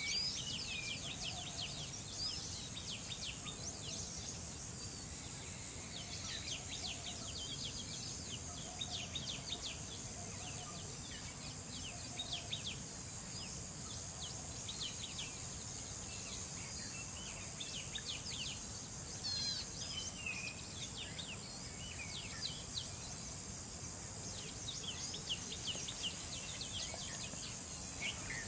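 Marsh ambience: a steady high insect drone with many quick chirps from small birds, over a low steady background hum.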